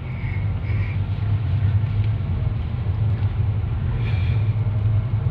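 Car driving slowly, heard from inside the cabin: a steady low rumble of engine and tyres. Two faint, brief high squeaks come near the start and about four seconds in.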